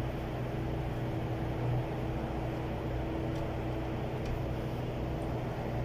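Steady, unchanging machine hum with a low drone.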